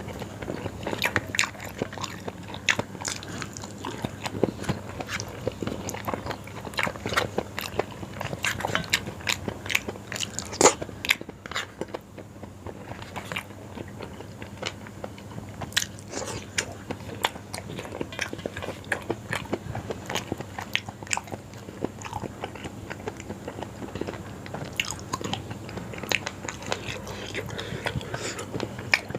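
Close-miked eating of yong tau foo: biting and chewing, heard as a dense run of short mouth clicks and smacks that eases off briefly around the middle.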